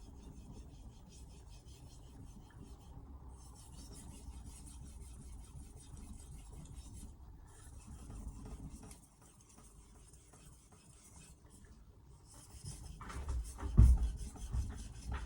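Carbon-steel kitchen knife blade being stroked back and forth across an Altstone RIN splash-and-go whetstone: a rasping scrape in four stretches with brief pauses between them. A burst of heavy thumps comes near the end and is the loudest sound.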